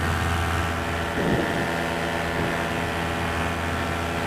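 Paramotor engine and propeller running steadily in flight, an even drone with a strong low hum.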